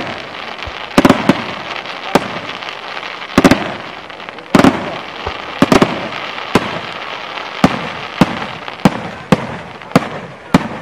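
Aerial fireworks shells bursting: a string of sharp bangs, roughly one a second and some in quick pairs, over a continuous crackle of glittering stars.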